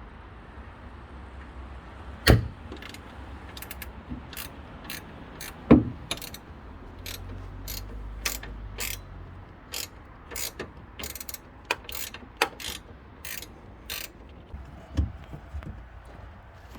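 Ratcheting wrench clicking in short, irregular strokes as the trunk-lid hinge bolts are backed out, with two louder metallic knocks about two and six seconds in.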